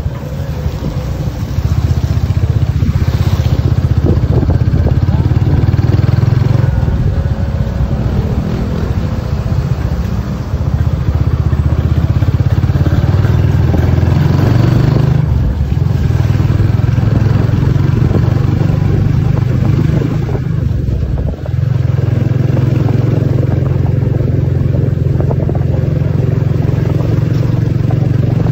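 Motorcycle engine of a Philippine tricycle (motorcycle with sidecar) running steadily as it rides along the street, heard from on board.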